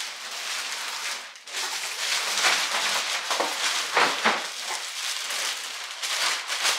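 Clear plastic wrapping bag rustling and crinkling as it is pulled and handled around a folded dog crate, louder about two and a half and four seconds in.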